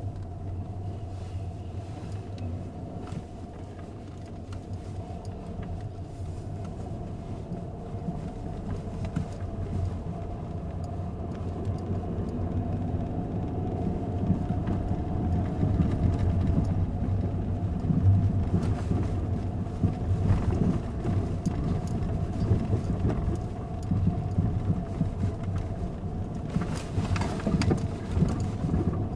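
Car interior with the windows closed: a steady low rumble with a faint steady hum above it. It grows louder from about halfway through.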